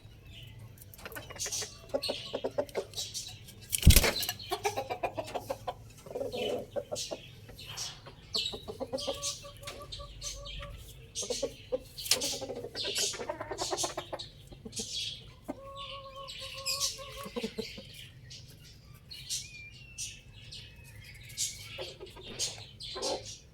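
Chickens calling and clucking, with a rooster's long held calls about ten and sixteen seconds in, and small birds chirping throughout. A sharp knock about four seconds in is the loudest sound.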